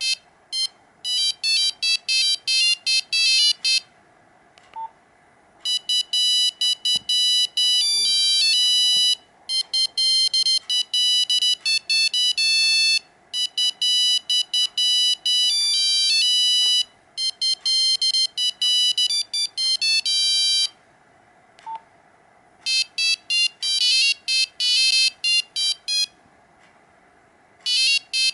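Nokia 5125 mobile phone playing its original monophonic ringtones: several fast beeping melodies one after another, with short pauses between them. A single short beep sounds in two of the pauses.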